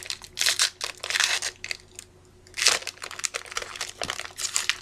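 Plastic wrapper of a Panini Score football card pack crinkling and tearing as it is opened by hand. The rustle comes in a few short bursts, with small clicks between them.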